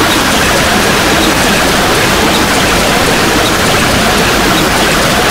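Loud, harsh, steady noise with no clear pitch, filling all frequencies evenly: heavily distorted, blown-out audio.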